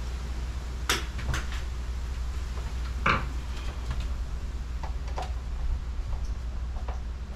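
A few sharp plastic clicks and clacks as battery wires are fitted and screwed into a solar charge controller's terminals, the loudest about three seconds in, with fainter ticks after. A steady low hum runs underneath.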